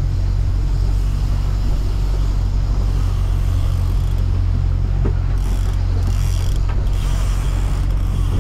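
Boat engine running steadily, a constant low hum with a rough mechanical rattle over it.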